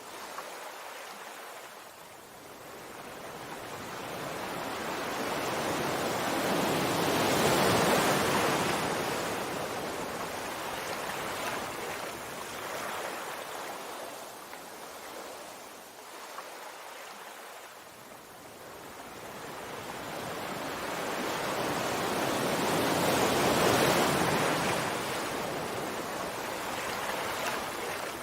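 Sea waves washing in and receding: two slow swells of surf, peaking about eight seconds in and again near the end, with quieter ebbs between.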